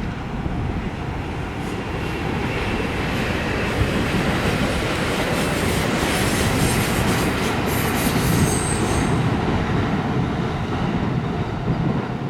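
A train passing close by, its wheels clattering over the rails in quick ticks, with a brief high squeal about eight seconds in.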